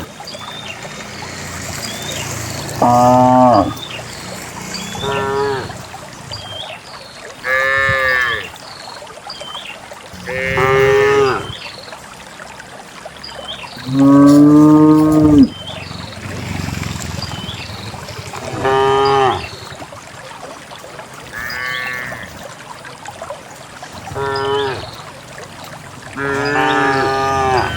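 A herd of cattle mooing, about nine separate calls in turn, some low and long, others shorter and higher-pitched.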